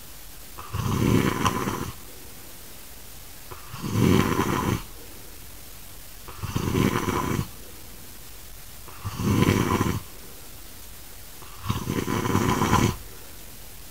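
A man snoring heavily with grunting snores. Each snore lasts about a second and comes about every two and a half seconds, five in all.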